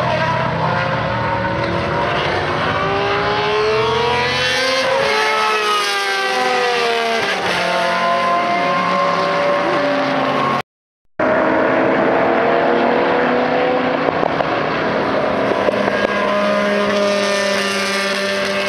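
Matra 670 V12 racing engine running at high revs, its note climbing and then sweeping down in pitch as a car goes by. The sound cuts out for about half a second near the middle, then a V12 is heard again at high revs, dipping and climbing once more near the end.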